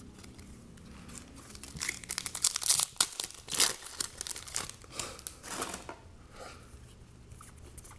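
Foil wrapper of a trading-card pack being torn open and crinkled by hand; the crackling starts about two seconds in and dies away about six seconds in.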